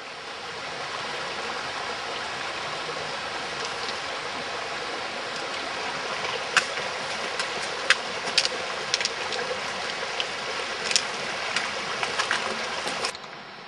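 Mountain stream rushing over rocks, a steady hiss, with sharp clicks and knocks of footsteps on the stones from about halfway through. It cuts off suddenly near the end.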